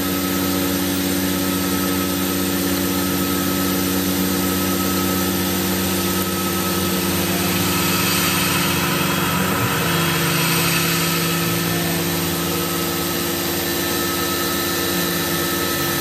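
CNC milling machine running steadily, its spindle driving a small ball end mill through shallow texture grooves in an aluminium block, with a constant hiss from the mist coolant.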